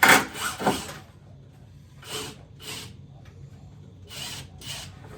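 Short scraping strokes in pairs about half a second apart: a loud pair at the start, then two fainter pairs about two and four seconds in.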